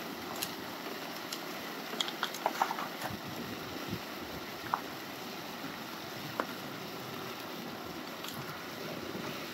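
Water spraying from a highbanker's spray bars and washing over gravel on its classifier screen: a steady rushing, with a few light clicks about two to three seconds in.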